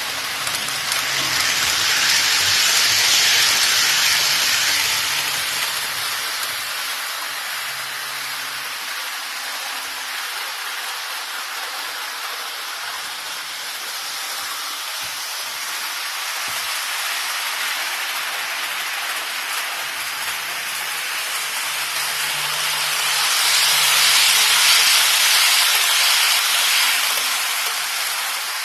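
Model train running on a layout's track: a steady hissing rumble of wheels and motor that swells twice as the train passes close by.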